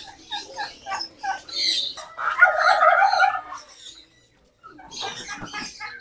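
Farm birds calling. First comes a quick run of short clucking notes, about four a second, then a louder drawn-out call of over a second starting about two seconds in. More short calls follow after a brief break.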